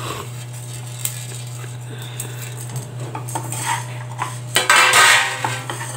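Wooden spatula scraping and stirring dry whole spices (black peppercorns, cumin and fennel seeds) around a metal kadai as they dry-roast without oil, the seeds rattling against the pan, with the loudest scrape near the end. A steady low hum runs underneath.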